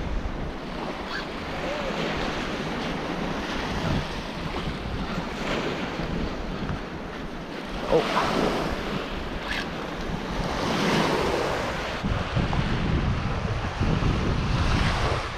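Ocean surf washing onto the beach, with wind buffeting the microphone, heavier in the last few seconds.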